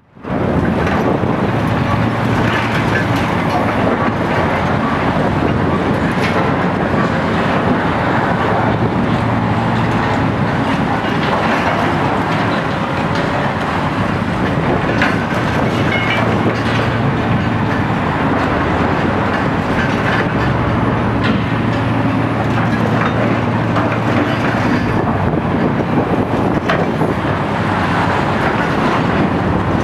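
Heavy demolition excavators, a Komatsu PC 800-8 high-reach among them, running steadily, with scattered clanks and crunches as concrete is broken and debris falls.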